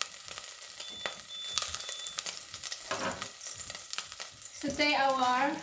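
Hot oil and browned chicken residue sizzling and crackling in a stainless steel pot on a glass-top hob. About a second in come a few short electronic beeps from the hob's touch controls.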